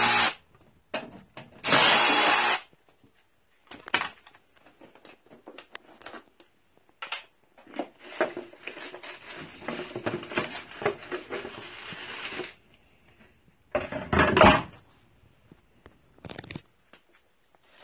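Milwaukee M12 FUEL brushless 3/8-inch cordless ratchet runs once, for about a second, near the start of the clip as it spins out a mower-deck belt-cover bolt. After it come scattered clicks and knocks, then several seconds of scraping and rustling as the belt cover is worked loose and lifted off the deck. A loud short clatter comes about fourteen seconds in.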